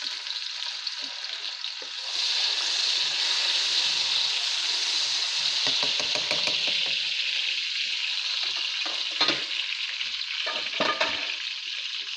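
Chopped tomatoes sizzling in hot oil on browned onions in a nonstick kadai as they are stirred in with a spatula, the frying getting louder about two seconds in. Two sharp knocks near the end, the spatula striking the pan.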